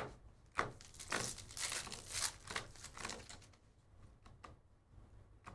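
Baseball card pack wrappers being torn open and crinkled, a run of crackly rustling for about three seconds that then turns faint.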